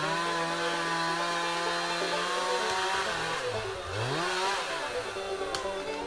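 Chainsaw engine revving to high throttle and holding there for about three seconds. It drops back briefly, then revs up again about four seconds in.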